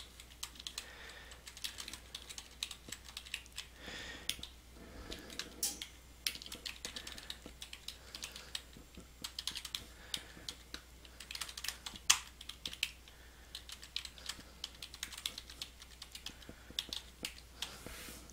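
Computer keyboard typing: quick, irregular keystrokes as a couple of sentences are typed out, over a faint steady low hum.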